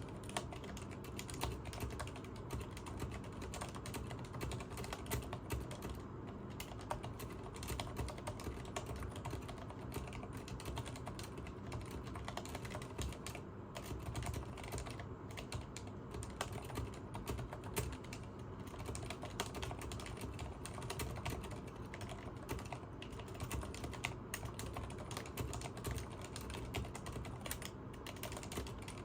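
Continuous typing on a Leopold FC980MS mechanical keyboard with Cherry MX Silent Red switches, which are dampened linear switches: a rapid, steady stream of key presses with no pauses.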